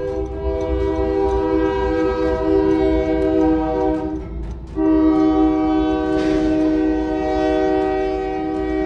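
Locomotive air horn sounding a long, steady multi-note chord, breaking off briefly about four and a half seconds in and then sounding again, over the low rumble of the train.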